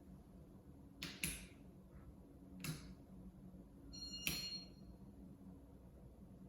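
Casablanca Nassau ceiling fan running at low speed, a faint steady hum. A few sharp clicks stand out over it, the loudest about a second in and about four seconds in, the last with a short metallic ring.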